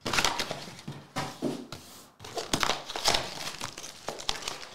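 Shiny foil hockey-card pack wrappers crinkling and tearing as packs are ripped open by hand, a run of sharp crackles.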